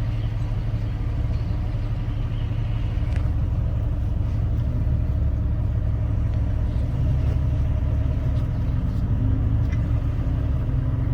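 Off-road vehicle's engine running steadily at low speed with a low rumble, its pitch rising slightly near the end.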